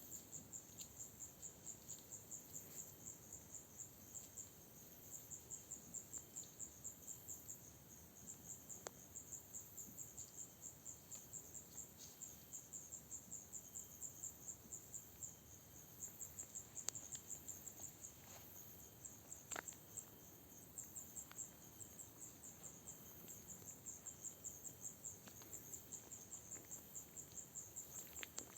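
Crickets chirping steadily in a fast, high-pitched pulse of about four chirps a second. A couple of faint sharp snaps come past the middle.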